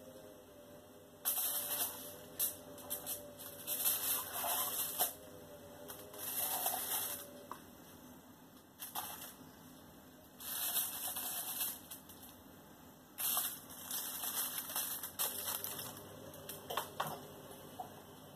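Foil and baking paper lining a baking tray crinkling and rustling in irregular bursts of a second or so as slices of garlic bread are moved about on it by hand, with a few light clicks near the end.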